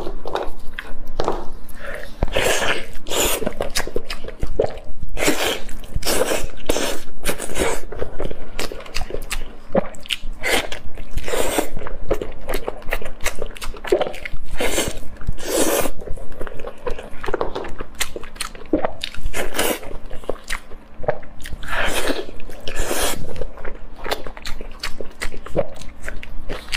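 Close-miked eating sounds: biting and chewing spicy grilled lamb ribs, with crunchy bites coming at irregular intervals.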